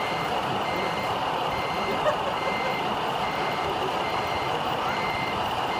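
Electronic reversing beeper on a radio-controlled model construction vehicle: a steady run of short, high beeps, a little faster than one a second, over a steady hall hubbub.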